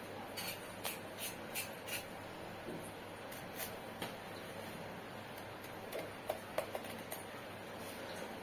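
A kitchen knife scraping the skin of a hand-held pointed gourd (parwal) and cutting through it: short, faint scraping strokes, about five in quick succession at first, then a few scattered strokes and light clicks.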